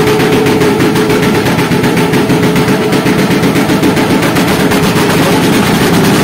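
Loud motorcycle engine running steadily, its exhaust giving a fast, rattling beat.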